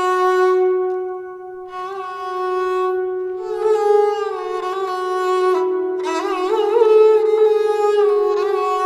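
Sarangi bowed in long held notes, decorated with quick murki (mordent) turns around the note. The pitch steps up about three and a half seconds in, with further quick ornaments near the middle and again about seven seconds in.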